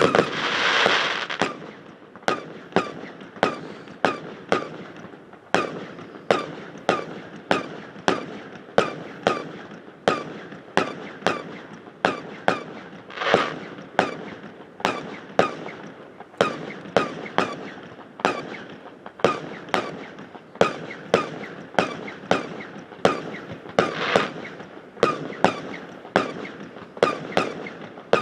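Firework display: a rapid run of sharp bangs, about two a second, each followed by an odd ringing echo off a metal hangar. A few longer noisy bursts stand out, near the start, about halfway through and near the end.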